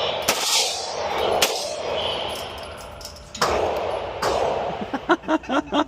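Gunshots echoing in an indoor shooting range: single sharp reports about once a second or so, then a rapid string of cracks near the end.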